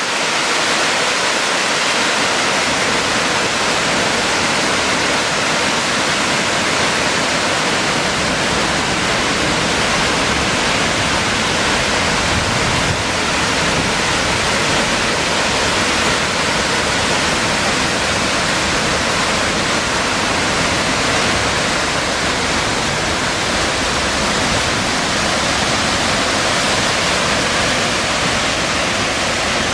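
Loud, steady roar of a large waterfall, water crashing down onto rocks close by.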